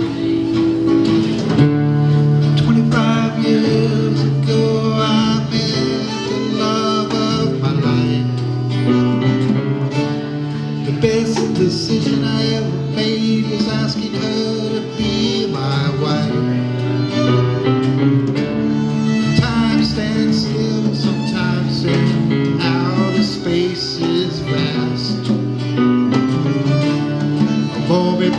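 Live band playing a long instrumental break in a country-style song, with guitar and a bending melodic lead line over it.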